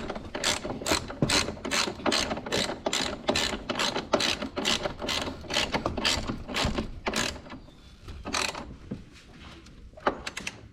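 Hand socket ratchet clicking in a steady rhythm, about two and a half clicks a second, as bolts are run down; the clicking stops about seven seconds in, with a couple of single clicks later.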